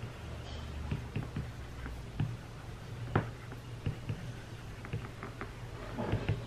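Apple Pencil tip tapping and stroking on an iPad's glass screen while writing Japanese characters: light, irregular ticks, the sharpest about three seconds in and a quick cluster near the end, over a steady low hum.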